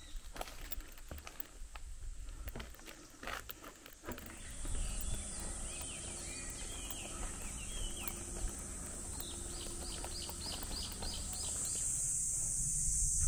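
Footsteps of a walker for the first few seconds. Then a steady high-pitched drone of summer insects sets in, with birds chirping over it, and the drone grows louder near the end.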